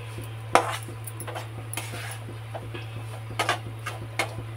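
Flat steel spatula scraping through crumbly roasting flour in a metal kadhai and clinking against the pan a few times, over a steady low hum.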